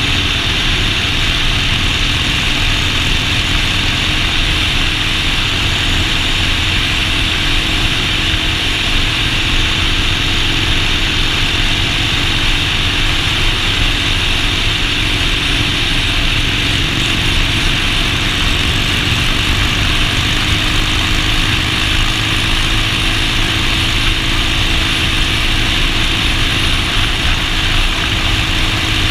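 Motorcycle engine running at a steady cruising speed under a constant rush of wind on the microphone, with no shifts or revving.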